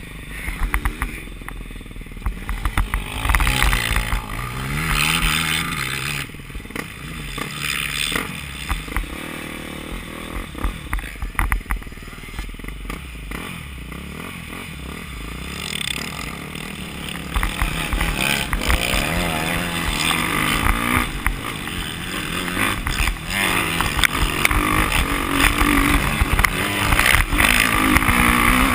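Dirt bike engine revving up and falling back again and again as the rider accelerates and shifts, with wind rushing over the microphone and occasional knocks from the bumps. It gets louder over the last third.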